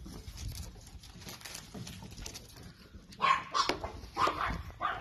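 Chihuahua puppies at play giving several short, high barks, starting about three seconds in.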